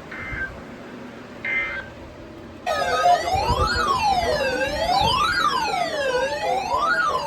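Two short buzzing data bursts of an Emergency Alert System end-of-message code. About 2.7 s in, a loud electronic siren starts wailing, its pitch rising and falling about every second and a half, with several overlapping wails.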